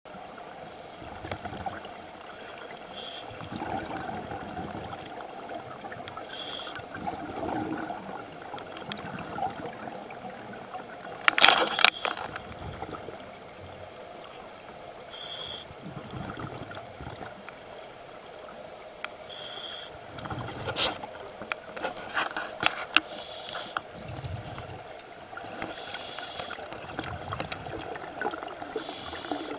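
Scuba regulator breathing heard underwater: a short hiss of inhalation every three to four seconds, with bubbling exhalations between them and a louder rush of bubbles about twelve seconds in.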